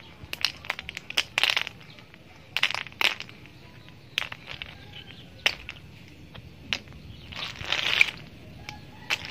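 Freshwater snail shells clicking and clattering against each other and the wet concrete as handfuls are scooped up and dropped back onto the pile: scattered sharp clicks with a few brief rattling bursts.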